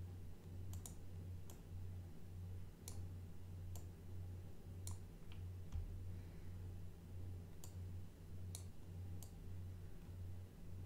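Computer mouse buttons clicking about ten times at irregular intervals, single clicks and a few close pairs, over a faint low hum.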